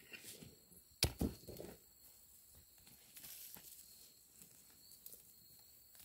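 Faint rustling and scraping of loose, clumpy soil as hands pull dirt away and lift out sweet potatoes, with a sharp knock about a second in.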